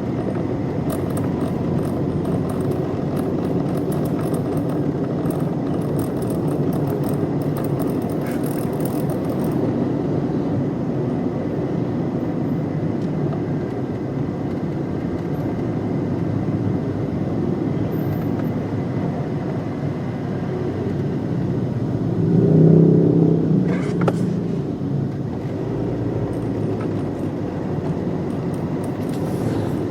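Car on the move: steady engine and road noise, with a brief louder swell about twenty-two seconds in and a short knock just after.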